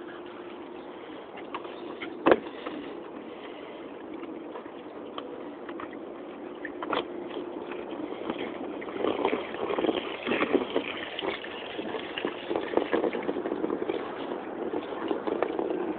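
Water splashing and sloshing in a plastic paddling pool as a small white dog moves about in it, with a garden hose pouring water in. The splashing starts about halfway through; before it there is only a faint steady hum and a single knock about two seconds in.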